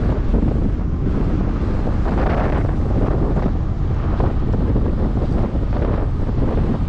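Wind buffeting the camera microphone at the side window of a moving vehicle, a loud, steady rushing over a deep rumble of road and engine noise.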